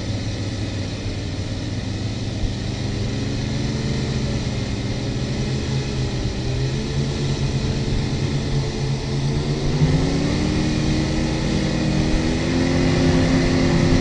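Performance powerboat's engine running hard under way, over the rush of wind and wake. The engine note climbs in pitch about ten seconds in as the boat speeds up, and grows gradually louder.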